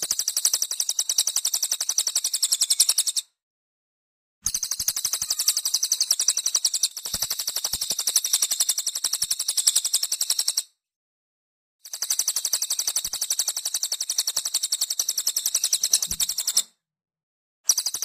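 Cililin songbird singing a fast, high-pitched trill of rapidly repeated notes. It comes in three long bursts of three to six seconds, broken by gaps of about a second of silence, and a fourth burst begins at the very end.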